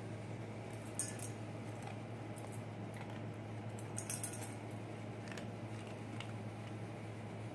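A basenji eating dry kibble from a stainless steel bowl: sharp metallic clinks of kibble and muzzle against the bowl, one about a second in, a quick cluster around four seconds in, and a few fainter ones later, over a steady low hum.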